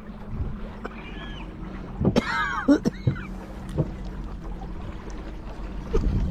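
Kayak paddling: several dull knocks of the paddle against the hull over a steady rush of water. About two seconds in there is a short burst of high chirping calls.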